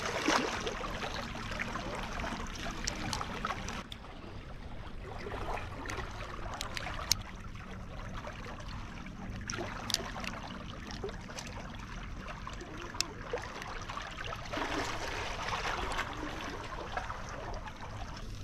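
Sea water washing and lapping against the rocks of a breakwater, swelling up at the start and again about fifteen seconds in, with a few small sharp clicks.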